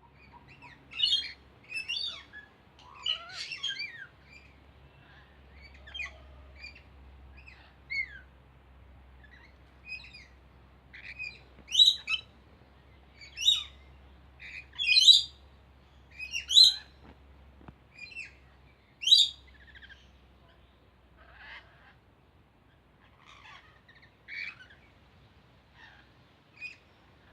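A flock of lorikeets calling: short, shrill screeching squawks in irregular bursts, loudest and densest in the middle and thinning out towards the end.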